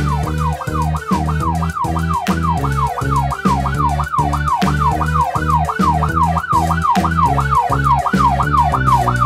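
Police siren sound effect in a fast yelp, each wail falling in pitch, about three a second, over background music with a steady beat.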